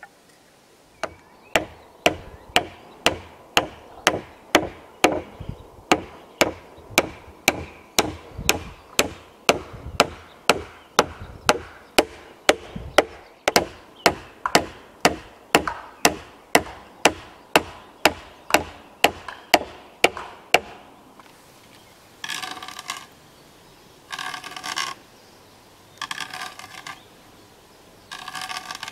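A hammer driving a wooden peg into a joint of a round-log timber frame: sharp, even strikes at about two a second, which stop about twenty seconds in. After them come four short calls, about two seconds apart.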